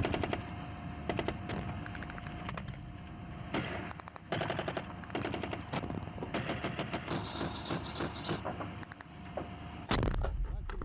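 Bursts of automatic gunfire mixed with single shots, and a loud, deep bang near the end.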